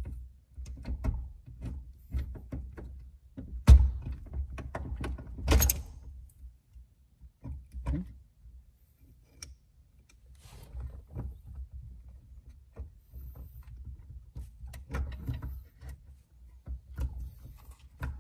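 Scattered clicks, knocks and rattles of metal and plastic parts as the upper housing of a GMT400 truck's steering column is worked loose and pulled apart by hand, with two sharp knocks about four and six seconds in.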